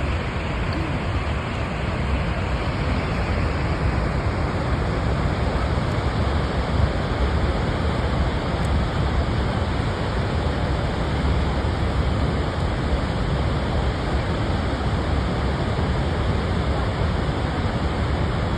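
Steady roar of Niagara Falls' falling water, an even, unbroken rush heaviest in the low end.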